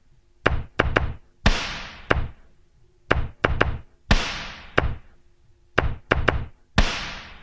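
Percussion playing a repeating pattern of sharp knocks and low thumps. About every two and a half seconds comes a louder hit with a long hissing decay, three times in all.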